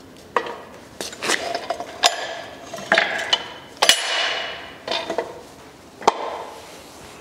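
Steel frame of a portable scissor car lift being turned over and set down on a concrete floor: a series of irregular metal clanks and knocks, the loudest about four seconds in, with a ringing tail.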